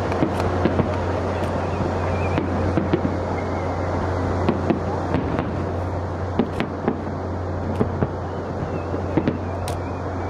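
Aerial fireworks display: shells bursting with sharp bangs and crackles at irregular intervals, about a dozen clear reports, over a continuous noisy rumble and a steady low hum.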